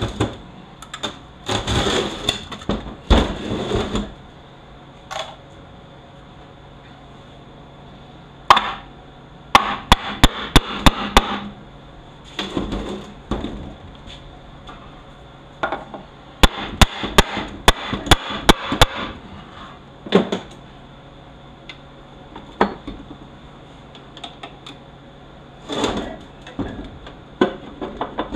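Two quick runs of hammer blows on a Toyota U250E automatic transaxle, about three strikes a second. The first run is about six blows, the second about eight. Scattered knocks and clatter of parts and tools fall between them.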